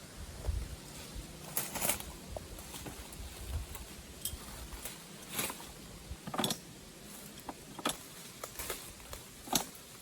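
Footsteps crunching irregularly over rough, overgrown ground while climbing a slope, with low wind rumble on the microphone.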